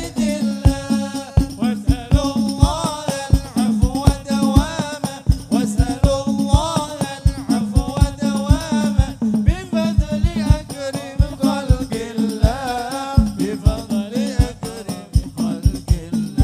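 Hadrah ensemble performing a qasidah: hand frame drums beat a steady, driving rhythm under a melismatic sung melody.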